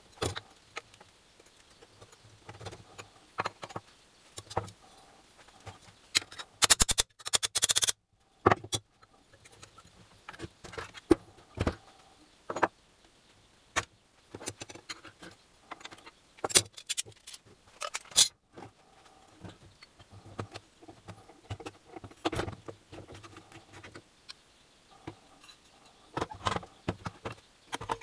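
Metal engine parts and hand tools being handled: scattered clinks and knocks, with two brief spells of rapid metallic jingling, the first about seven seconds in and the second about seventeen seconds in.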